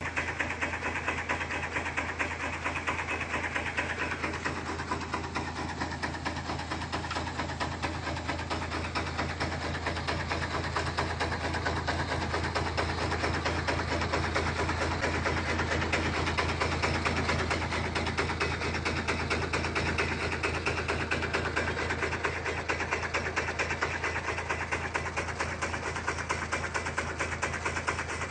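Tractor engine running steadily under load, driving a Kadıoğlu tractor-mounted walnut tree shaker, with a fast, even rattle from the shaking mechanism. It gets a little louder about halfway through.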